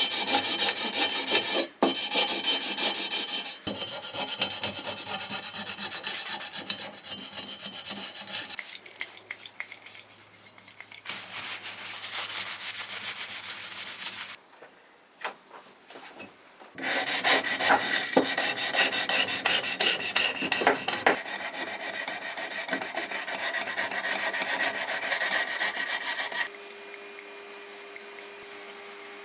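Rusty metal slide rails being hand-sanded with abrasive paper, rapid back-and-forth rubbing strokes that stop briefly in the middle. Near the end the rubbing stops and only a faint steady hum is left.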